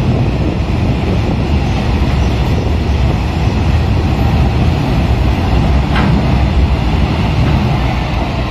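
Freight train of empty open-top wagons rolling past, a steady rumble of wheels on rail, with one short sharp clank about six seconds in.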